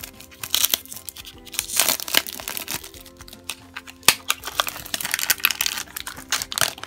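Cellophane wrapping and a foil blind bag crinkling and rustling as a small plastic Shopkins toy lunchbox is unwrapped and opened by hand, with one sharp click about four seconds in. Soft background music plays underneath.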